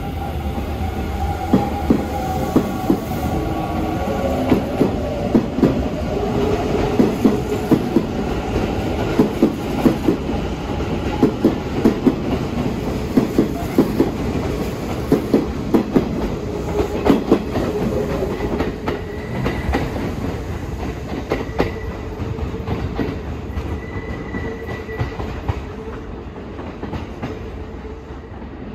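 Electric commuter trains, a Kintetsu train and a Hanshin 1000-series train, moving along the platforms with their wheels clacking sharply over rail joints and points, under a steady motor hum. A thin high tone sounds on and off in the second half, and the sound eases off near the end.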